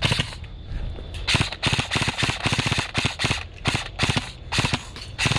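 Airsoft electric rifle firing a string of single shots at an uneven pace, about three sharp cracks a second.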